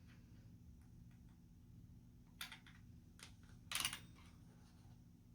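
A few faint clicks from small plastic parts and a screwdriver being handled during disassembly, the loudest a short rattle about four seconds in, over a steady low hum.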